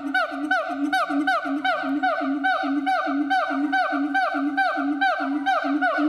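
Siamang calling: a fast, even run of loud hooting notes, about three to four a second, each sliding down in pitch.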